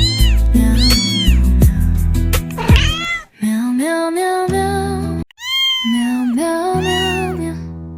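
Cat meowing about five times, each call rising then falling in pitch, over background music.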